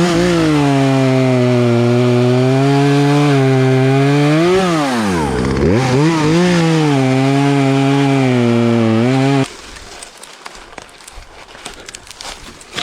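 Battery-powered chainsaw cutting through a log. The motor's steady whine sags sharply under load about halfway through, nearly stalling, then picks back up. It cuts off abruptly near the end, leaving faint crackling and rustling.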